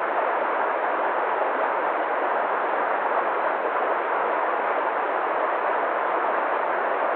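Waterfall: a steady rush of falling water, even and unchanging.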